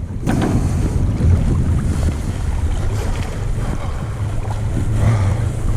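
Steady rushing of flowing creek water, with wind buffeting the microphone as a low, uneven rumble.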